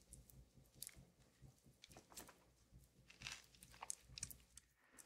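A person chewing and biting food, with scattered crisp crunches and wet mouth clicks that come thickest in the middle.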